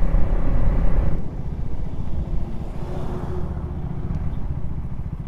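KTM Duke's single-cylinder motorcycle engine running under throttle, then easing off about a second in and continuing at a lower, quieter note as the bike slows, with wind rushing over the microphone.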